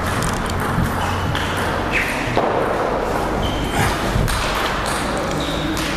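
Table tennis balls clicking on tables and bats: many short, irregular knocks from several tables.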